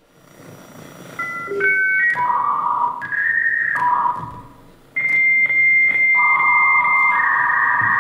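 Stage music made of high held tones that step from pitch to pitch, rising in level from near silence over the first couple of seconds. A loud steady tone enters about five seconds in, and a second tone joins below it.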